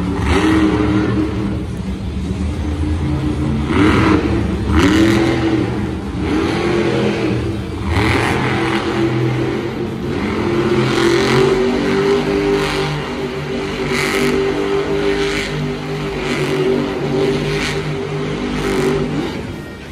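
Monster truck's supercharged V8 engine revving hard in repeated rising-and-falling bursts, then holding a steadier, higher pitch for several seconds before dropping away near the end.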